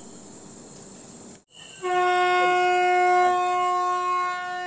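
Train horn sounding one long, steady blast of about three seconds, starting about two seconds in, as the train moves off.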